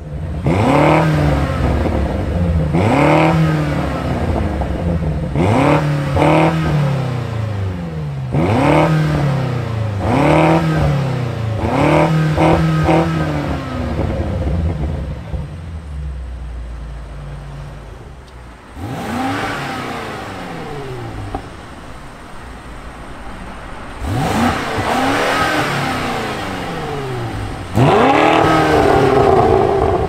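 BMW F90 M5 CS twin-turbo V8 revved in a string of quick blips on its stock exhaust, then settling to a steady idle. After that, on a Fi Exhaust valvetronic catback with the valves closed, it gives a few longer revs. Near the end a louder rev comes with the exhaust valves open.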